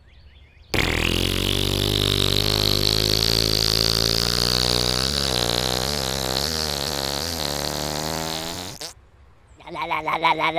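Monster truck engine sound effect: starts abruptly about a second in, revs up and runs steadily, then cuts off abruptly near the nine-second mark. Near the end a second engine sound with a fast, even pulse of about five beats a second begins.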